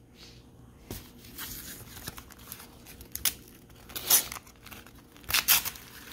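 Paper-foil sticker pack wrapper crinkling and tearing as it is handled and ripped open, in short rustling bursts, the loudest about four seconds in and again a second later.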